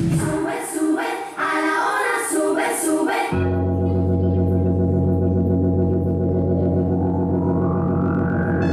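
Dance number's backing music: a rhythmic passage with a beat, which changes abruptly about three seconds in to a long held organ-like chord with a pulsing texture, and a tone gliding upward near the end.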